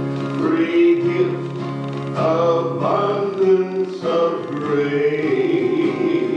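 A man singing a gospel hymn with instrumental accompaniment, in long held notes over steady low sustained tones.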